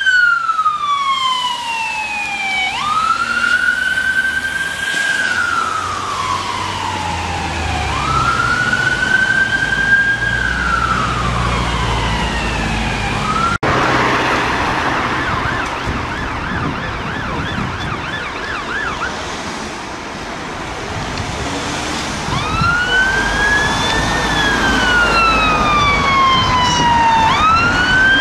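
UK emergency-vehicle sirens. First an ambulance siren wails, each cycle rising quickly and falling slowly over about two and a half to three seconds. After an abrupt cut about halfway through, a fire engine's siren sounds from further off as a fast yelp, then returns to a slow wail that grows louder as it approaches over traffic noise.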